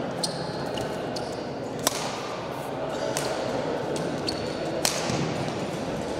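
Badminton rackets striking a shuttlecock in a rally: a few sharp hits one to three seconds apart, over the steady murmur of an indoor hall.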